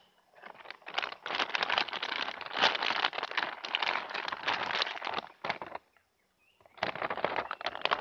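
A thin clear plastic bag crinkling and rustling as it is handled and shaken. There are two stretches, a long one and then a shorter one after a brief pause about six seconds in.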